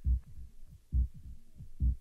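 Stripped-down passage of a techno track: three deep kick-drum thumps a little under a second apart, with softer low pulses between them and a few faint short gliding blips above.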